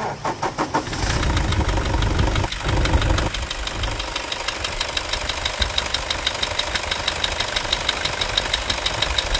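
Toyota Hilux 2.5 diesel engine cranked by the starter, catching about a second in, running a little faster for a couple of seconds, then settling to a steady idle with a regular diesel clatter. The accessory belt, freshly replaced along with its bearing, runs without its earlier scraping noise.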